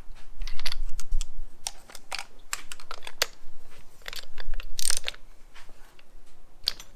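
Ratchet wrench clicking in short, irregular runs of sharp clicks, with a brief rasp or two, as spark plugs are unscrewed from the engine's cylinder head.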